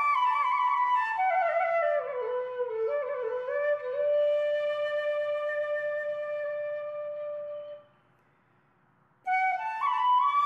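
Background music: a slow solo flute melody that falls step by step to a long held note, breaks off for about a second, then starts a new phrase near the end.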